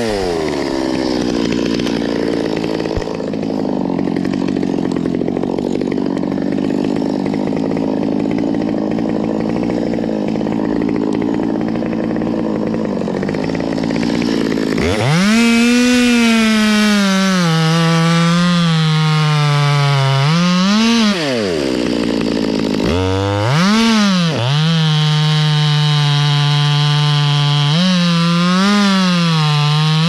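Stihl two-stroke chainsaw running at full throttle, cutting through a sycamore stem. From about halfway its note turns clearer and steadier, rising and falling with the throttle several times.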